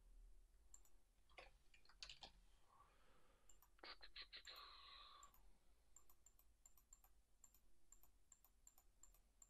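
Faint computer keyboard and mouse clicks: a quick run of keystrokes about four seconds in, followed by a brief hiss, then light, evenly spaced clicks.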